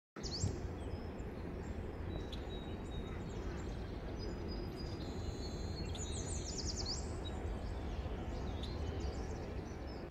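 Birds chirping and calling, with a quick trill of sweeping notes about six to seven seconds in, over a steady low rushing noise.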